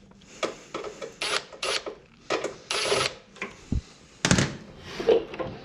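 Tools clicking and clattering against metal on a car's front end: a run of irregular short clicks, knocks and brief rattles, the loudest a knock about four seconds in.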